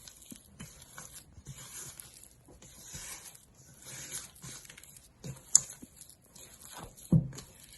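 Rubber spatula stirring thick brownie batter with chocolate chips in a bowl: irregular wet squishing and scraping strokes, with a sharp click about five and a half seconds in and a knock against the bowl near the end.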